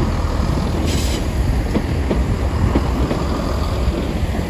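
Diesel multiple-unit train moving along the platform: a low engine rumble with wheels clicking irregularly over the rail joints, and a brief hiss about a second in.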